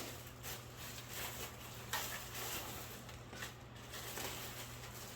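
Faint clicks and light knocks of metal and plastic parts being handled and fitted, the clearest about two seconds in, over a steady low hum.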